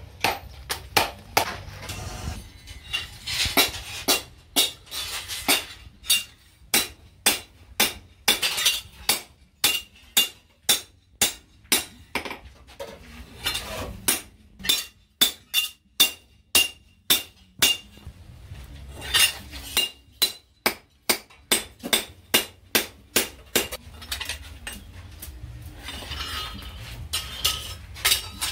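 Blacksmith's hand hammer striking steel on a post anvil: a steady run of blows about two a second, each with a bright metallic ring, broken by short pauses.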